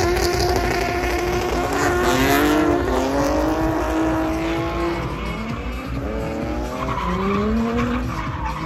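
A drift car sliding sideways under power, its engine revving hard with the pitch rising and falling as the throttle is worked, and its rear tyres squealing and smoking.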